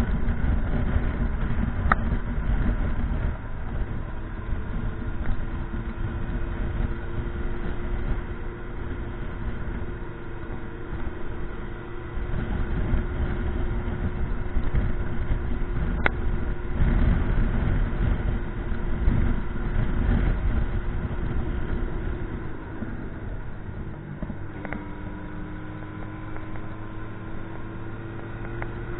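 Motorcycle engine running while riding, over a heavy low wind rumble on the microphone; the engine pitch holds fairly steady, drops about 24 seconds in, then climbs slowly toward the end. Two short sharp clicks, about 2 and 16 seconds in.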